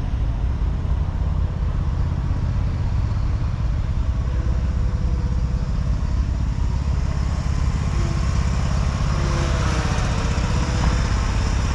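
Steady low rumble of outdoor background noise, with a few faint wavering tones about two-thirds of the way in.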